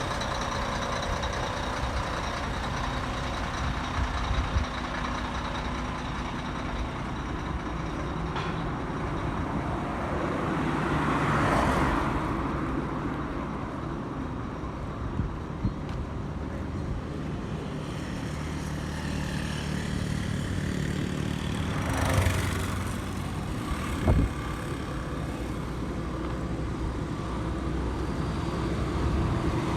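Steady road traffic and vehicle engine noise. It swells louder twice, about twelve and twenty-two seconds in, and there are a couple of short knocks.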